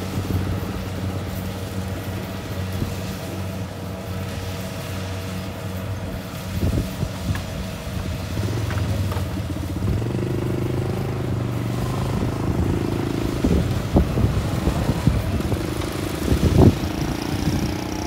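Kubota combine harvester's engine running steadily under way, with mechanical clatter and a few sharp knocks, the loudest near the end.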